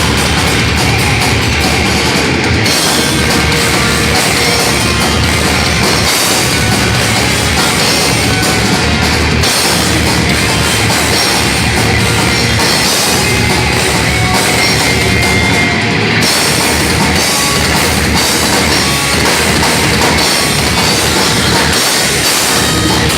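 A live thrash metal band playing loud and without a break: distorted electric guitars, bass and a drum kit with cymbals.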